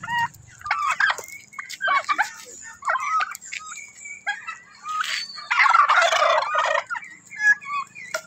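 Domestic turkeys calling: short warbling calls about once a second, then a longer, louder gobble about five and a half seconds in.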